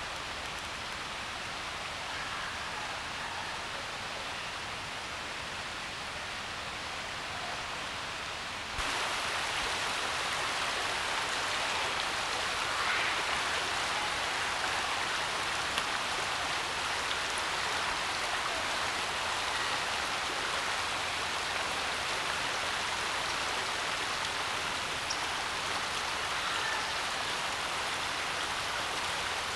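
Steady rush of a shallow, rocky mountain river running over stones, stepping up suddenly in level about nine seconds in.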